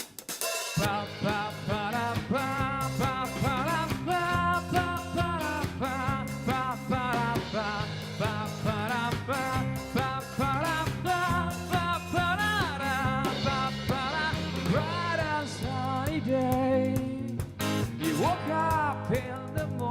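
A rock band playing a song's intro: drums, bass and a lead melody that bends up and down in pitch, starting under a second in.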